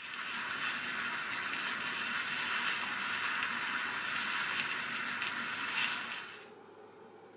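Shiitake mushroom caps sizzling in a frying pan in a soy-sauce seasoning: a steady hiss with scattered crackles that fades out about six seconds in.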